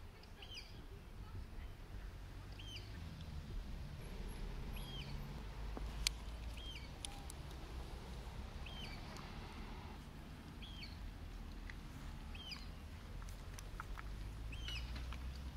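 A small bird's short, high call, a quick rise and fall, repeated steadily about once every second or so over a low background rumble. A single sharp click about six seconds in.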